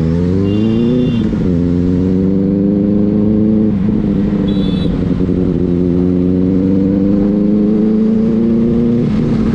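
Benelli 600i inline-four motorcycle engine under way: the revs rise for about a second, drop back with a gear change, then hold steady at cruising speed.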